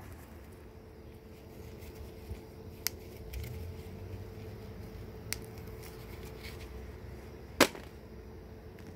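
Green bean pods snapped off the vine by gloved hands: three sharp snaps about two to two and a half seconds apart, the last the loudest.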